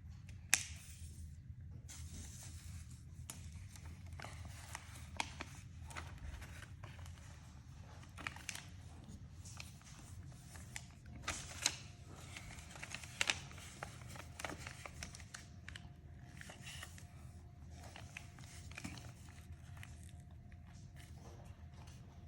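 Paper rustling and crinkling under hand while a card is made, with scattered sharp taps and clicks, over a low steady background hum.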